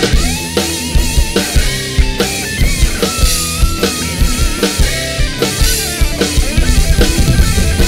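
Rock song with a full drum kit beat, bass drum and snare driving hard, played along on an Alesis electronic drum kit, under a lead line of bending, wavering notes.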